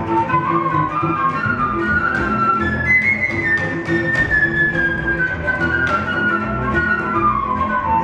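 Flute, double bass and cello playing together live. The flute melody climbs to a high held note about three seconds in and then slowly descends, over a plucked double bass line and bowed cello, with frequent sharp percussive clicks.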